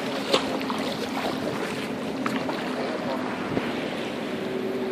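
Shallow sea water lapping at the shore, with wind on the microphone and a boat motor running steadily in the background; a second steady engine hum comes in near the end.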